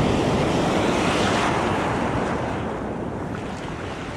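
Small surf waves washing up onto a gravelly beach close by, loudest in the first second or so, then easing off as the water runs back.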